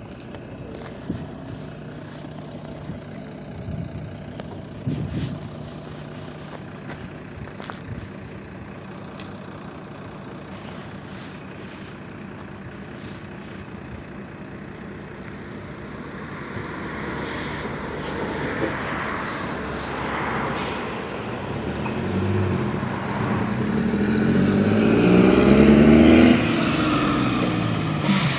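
MAZ 103 city bus idling at a stop with a few clicks. Past the middle comes a short hiss of air, and the diesel engine revs up, rising in pitch and loudness as the bus pulls away.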